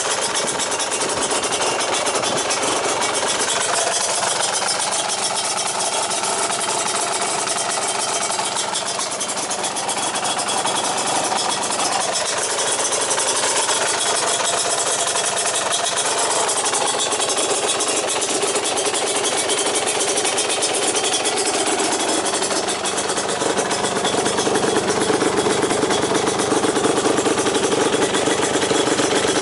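Yamaha DT230 Lanza's single-cylinder two-stroke engine running steadily through a PRO SKILL expansion chamber and silencer, getting louder about three-quarters of the way in.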